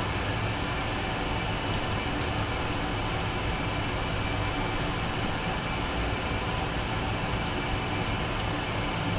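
Steady hum and hiss of background noise with a few faint, high metallic ticks: a dimple pick working the telescoping pins of a Mul-T-Lock Junior cylinder.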